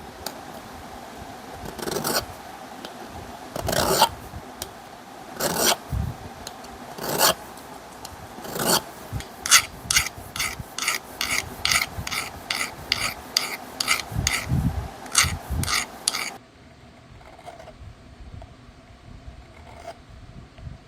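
Hand file rasping on the cast-iron body of a small Bonney vise. At first it makes single strokes about a second and a half apart, then a quicker, even run of about three strokes a second. It stops abruptly about 16 seconds in, leaving only faint sound.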